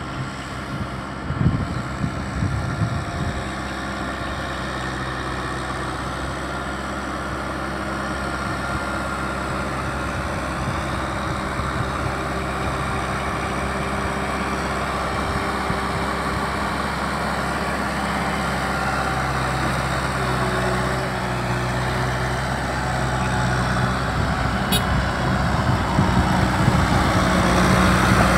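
Kubota M6040 tractor's diesel engine running steadily under load as it pulls a rotary tiller through flooded paddy mud, growing louder near the end as it comes close. Wind buffets the microphone for the first few seconds.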